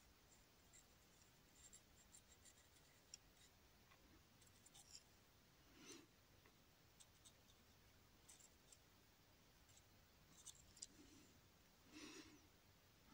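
Near silence, with faint scattered ticks and light scratching of a paintbrush working acrylic paint on a canvas, and two short soft rustles, one midway and one near the end.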